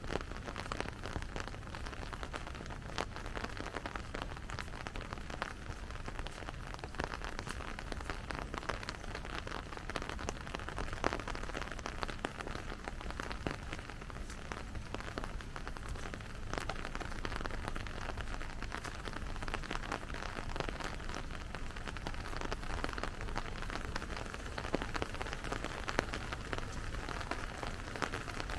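Steady rain falling on the street, with many sharp individual drop hits over a constant hiss and a low rumble underneath.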